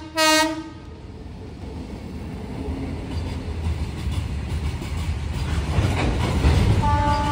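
Freight train hauled by an electric locomotive, with open steel wagons, passing close by. A short horn blast ends about half a second in. Then the rumble and rattle of the wagons grow steadily louder, and a horn sounds again near the end.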